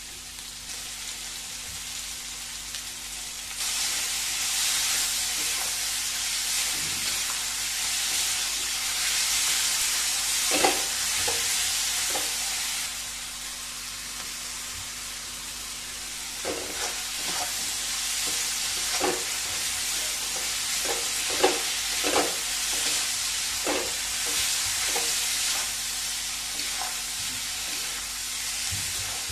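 Sliced onions, capsicum and green chillies sizzling in hot oil in a steel kadai on high flame, being sautéed until soft. A steel spatula scrapes and knocks against the pan as they are stirred; the sizzle grows louder about three and a half seconds in, and the knocks come more often in the second half.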